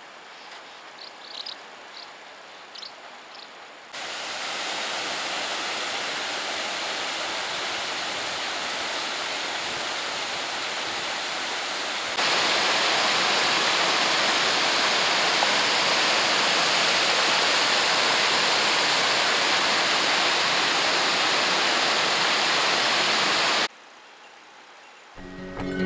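Strong mountain wind rushing steadily, as an even noise with no gusting rhythm, in separate clips spliced together: quieter at first with a few faint high chirps, louder from about four seconds in, louder again from about twelve seconds, then cutting off abruptly near the end.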